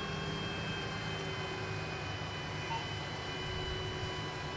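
A steady low engine drone with a few faint, steady high-pitched tones over it.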